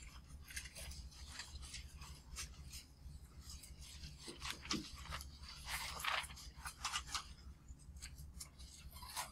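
Faint, irregular scratching and rustling of paper: notebook pages being handled and a pen writing on them in short strokes.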